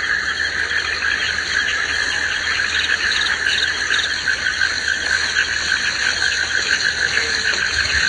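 Tropical rainforest chorus of frogs and insects: a dense, steady layer of many callers, with rapid pulsing trills higher up.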